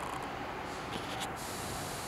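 Wall-mounted electric fan heater running, its fan giving a steady rush of blown air with a faint constant whine.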